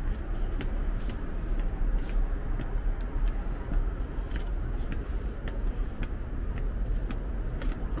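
City street ambience: a steady hum of road traffic, with occasional short clicks.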